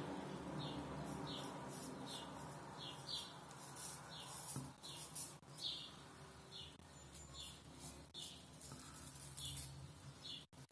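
Kamisori (Japanese straight razor) blade scraping through lathered stubble on the neck in short, rapid strokes, about one and a half a second, during the first pass of the shave.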